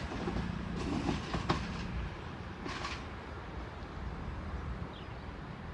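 Class 220 Voyager diesel-electric multiple unit running through the station with a steady low rumble. Short clicks and hisses from the wheels come about a second in and again near three seconds.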